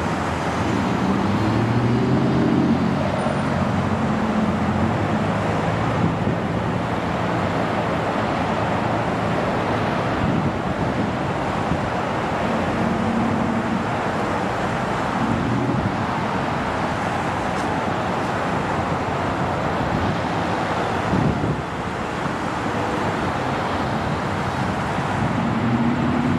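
Airbus A320-family jet airliner rolling out on the runway after landing, its turbofan engines giving a steady rushing noise with a low hum that drifts in pitch. The sound grows a little louder near the end as the jet comes closer.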